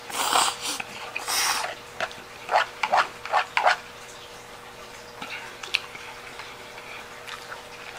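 A person slurping spaghetti peperoncino noodles: several loud slurps in the first two seconds, then a quick run of short sucking and mouth sounds, then quieter chewing.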